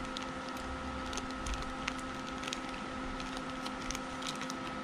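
Faint scattered crinkles and small clicks of a plastic sandwich bag being torn and peeled away from a cutting's soil and roots, over a steady background hum.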